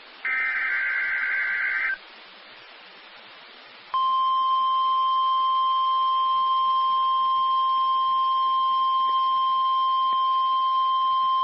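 A NOAA Weather Radio SAME digital header burst, a short warbling data screech, is followed about two seconds later by the steady 1050 Hz warning alarm tone, which is still sounding at the end. This is the opening of a weekly test of the weather-alert receivers.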